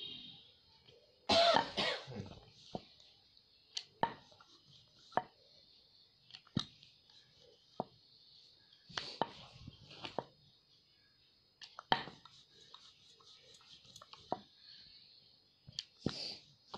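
A rolling pin rolling out dough on a wooden board, giving irregular knocks and clicks as it rocks and taps on the board. A louder, rougher burst comes about a second and a half in.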